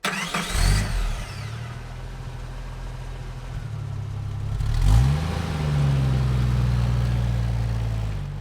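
A vehicle engine starts and runs steadily, then revs up just before five seconds in and keeps running at the higher speed.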